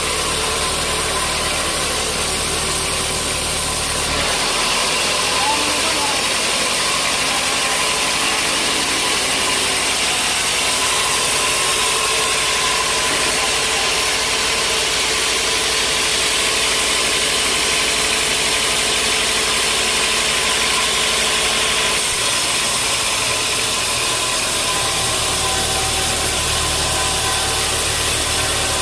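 Sawmill machinery running steadily with a loud, even noise. The deep low part of the sound drops away about four seconds in and returns near the end.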